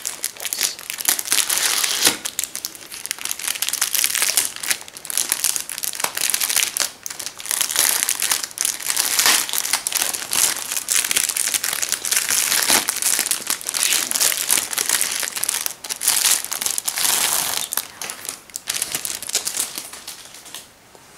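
Clear plastic wrapping crinkling as it is pulled and peeled off a spiral-bound paper planner by hand. The crackling comes in irregular waves and dies down near the end.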